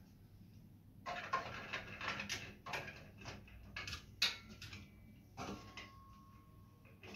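Parts of a swing-arm TV wall bracket being handled and fitted by hand: a run of small clicks, knocks and rattles after a quiet first second, the sharpest click about four seconds in.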